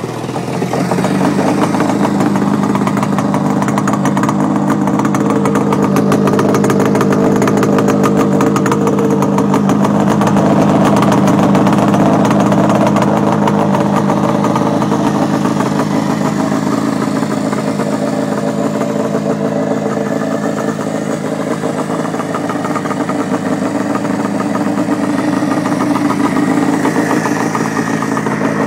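1965 Yamaha YDS5's two-stroke parallel-twin engine idling steadily through open exhaust pipes with the baffles removed, its carburetor freshly fixed. The idle sits a little high, set to be tuned down.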